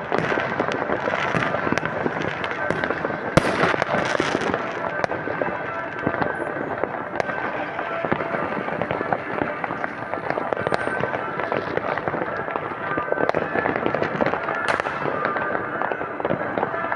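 Many fireworks and firecrackers going off at once: continuous dense crackling and popping, with a louder bang about three and a half seconds in.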